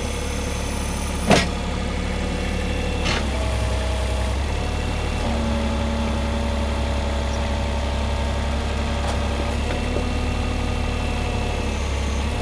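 Cat 303 mini excavator's diesel engine running steadily while its hydraulics work, the engine note shifting under load a few times as the controls are moved. A sharp metallic clank about a second in, and a lighter one about three seconds in.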